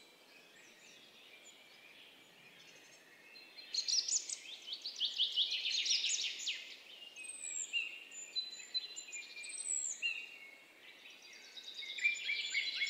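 Small birds singing and chirping in rapid trills of high, falling notes. The first few seconds are quiet, then overlapping songs come in, with a few high whistles partway through.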